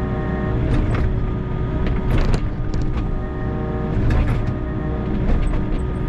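Volvo EC60E mini excavator running under digging load, its engine and hydraulics giving a steady hum with a whine. Several sharp knocks and scrapes come as the bucket tears through rocky, frozen soil.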